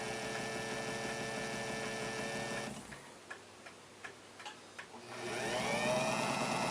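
Small electric motor spinning a boxwood peg charged with diamantine to polish a hardened steel balance bearing cup. It runs steadily, cuts out after about two and a half seconds, a few light clicks follow, then it starts again and rises in pitch to a steady speed.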